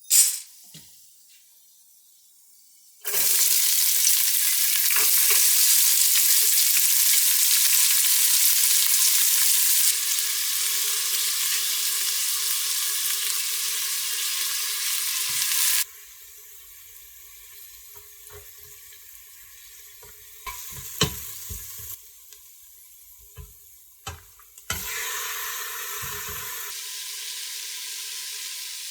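Food frying and sizzling in hot oil in a pan. It starts loud about three seconds in, drops much quieter after about sixteen seconds with a few scattered knocks, and rises again briefly near the end.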